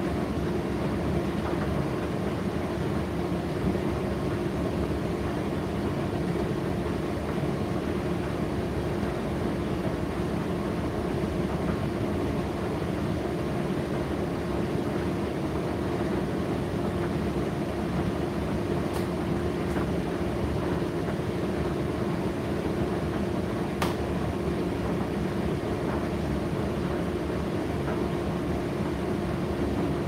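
Indesit IDC8T3 condenser tumble dryer running: a steady drone with a constant hum tone, and two light ticks in the second half.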